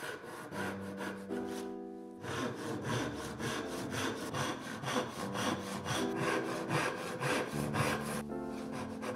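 Handsaw cutting across a hardwood block in quick, even strokes, several a second. The strokes pause briefly about two seconds in and stop near the end.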